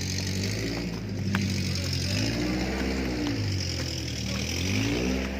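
A motor vehicle's engine running and revving up and back down twice, about two seconds in and again near the end, with a few light clicks.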